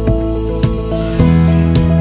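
Background music: instrumental with a regular beat and sustained notes, the bass changing about a second in.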